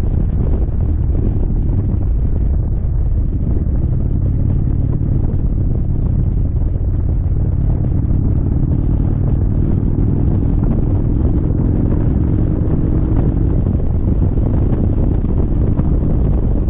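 Indian Chieftain motorcycle's V-twin engine running at a steady cruise, under a low rumble of wind buffeting on the microphone.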